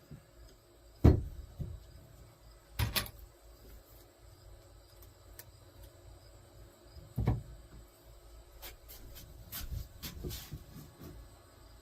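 Sharp knocks and clacks while wooden pieces are fastened at the corners: a loud one about a second in, then a few more spread irregularly through the rest.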